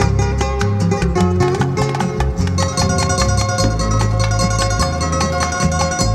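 Instrumental guitar break in a recorded song: plucked guitars play a melody over a moving bass line.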